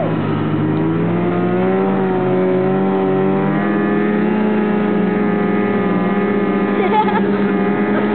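Snowmobile engine running steadily under load while towing riders. Its pitch climbs slightly over the first few seconds and then holds level.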